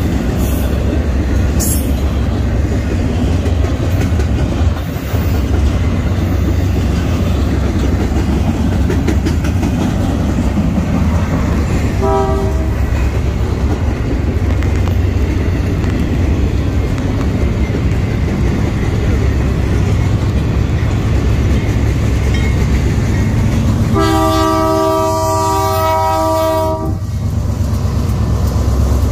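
Double-stack intermodal freight train rolling past close by, a loud steady rumble with the clickety-clack of its wheels. An approaching BNSF GE wide-cab diesel locomotive sounds its multi-note horn: a short toot about twelve seconds in and a long blast of about three seconds near the end as it nears the crossing.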